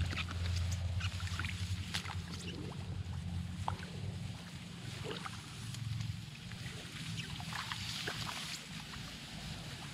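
Low rumble of wind on the microphone, strongest in the first couple of seconds, with scattered light rustles and ticks of rice stalks brushing together.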